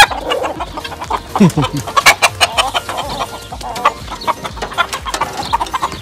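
A flock of chickens and roosters clucking, with many short calls overlapping.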